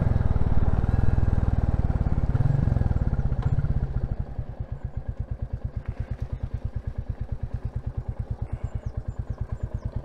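Royal Enfield Classic 350's single-cylinder engine running as the motorcycle slows and pulls in. About four seconds in it settles to an even, quick thump-thump idle.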